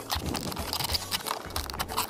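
Empty plastic water bottle crinkling and scraping as it is handled, a run of irregular crackles and scrapes.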